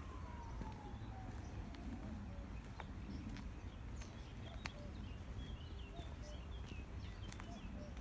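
A faint siren wailing, its pitch falling slowly over the first two seconds, over a steady low rumble. Short high bird chirps come in the middle.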